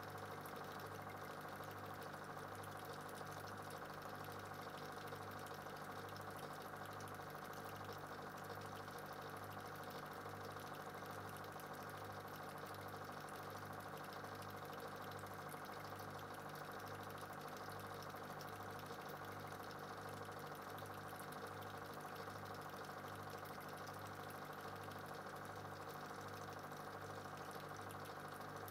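Steady low mechanical hum of a small machine, with a slight regular wavering in its pitch.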